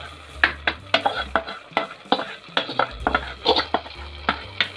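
Utensils clicking and scraping against a pressure-cooker pot as fried cashews and coconut are tipped into thick sweet pongal: an irregular run of sharp clicks, several a second.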